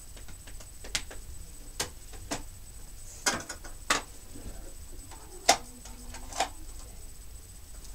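About nine sharp light clicks and knocks at irregular intervals, the sound of small objects being picked up and handled.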